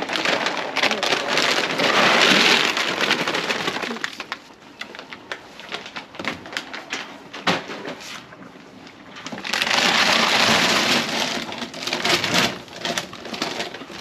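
Dry feed poured from a bag or scoop into a feeder, a rattling hiss of many small pellets, in two main pours with scattered clicks between.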